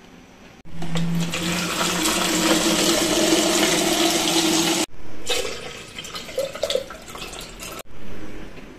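Water running steadily from a countertop water dispenser into a plastic measuring jug for about four seconds, then stopping abruptly. After it, quieter water and handling sounds with a few knocks from a stainless steel kettle.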